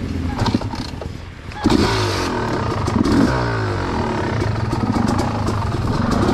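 Dirt bike engine ticking over, then revved sharply about a second and a half in and blipped up and down as the bike rides down into a rocky gully. Scattered clicks and knocks of clatter run through it.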